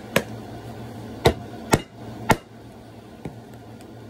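Four sharp knocks in quick succession, then one fainter one: a plastic dessert cup held upside down and smacked against an open palm to knock the pudding out.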